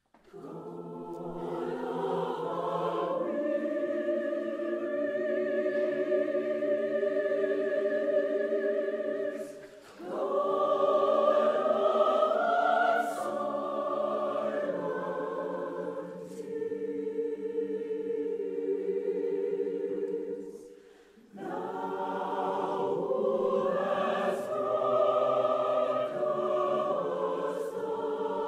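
A choir singing slow, held phrases, pausing briefly between phrases about ten and twenty-one seconds in.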